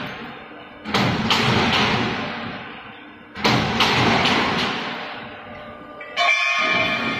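Automatic C/Z/U steel-profile roll-forming machine cutting on the fly: three sharp metallic crashes about two and a half seconds apart as the shear cuts the formed steel section, each fading off in a hiss. The last one, near the end, leaves the cut steel ringing like a bell.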